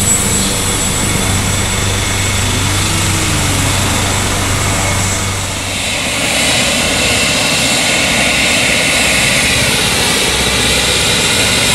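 Helicopter turbine engines and main rotor running steadily close by. About six seconds in the sound changes abruptly, and a higher turbine whine takes over while the helicopter sits on the pad with its rotors turning.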